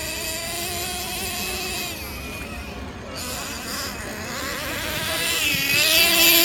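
Radio-controlled model motorcycle's small motor whining, its pitch wavering up and down with the throttle. It grows louder near the end as the bike runs close by.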